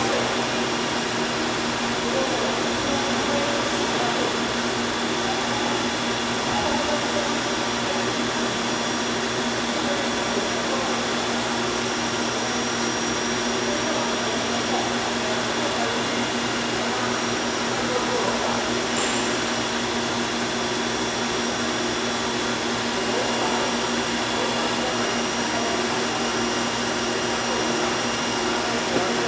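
CNC gun drill machine running: a steady mechanical whir and hiss with several steady tones over it, holding an even level throughout.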